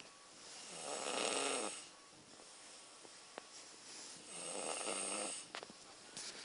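Loud snoring: two long snores about three and a half seconds apart, each a low buzzing rattle carried on a rush of breath, with quieter breathing between them.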